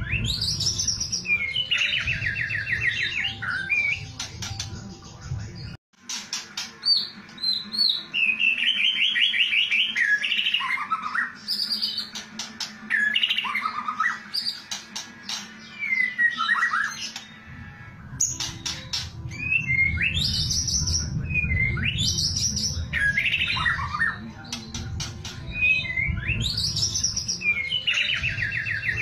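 White-rumped shama (murai batu) singing loud phrases of clear whistles and rising notes, broken by fast rattling trills (kretekan). The song cuts off abruptly for a moment about six seconds in, then resumes.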